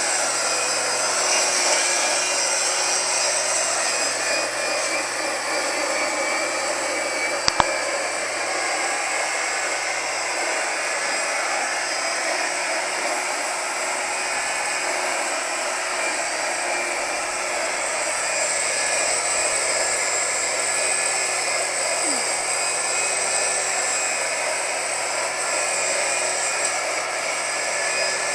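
Corded electric string trimmer running steadily, its nylon line cutting through grass, with one sharp click about seven and a half seconds in.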